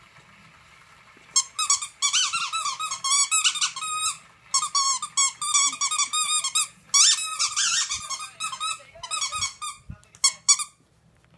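Squeaker in a plush dog toy squealing over and over as a miniature schnauzer bites and chews it, in quick runs of short, wavering squeaks several times a second, starting about a second and a half in.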